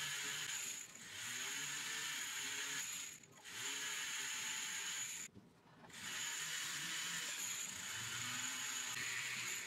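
Small cordless rotary tool running with a steady high whine, its grinding bit smoothing the end of a brass-wire earring post. The sound drops out briefly about three seconds in and again for about half a second near five and a half seconds.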